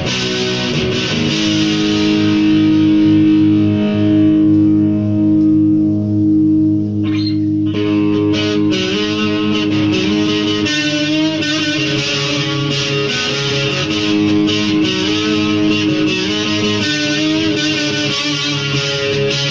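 Electric guitar played solo: a note held for several seconds, then a run of quickly picked notes from about eight seconds in.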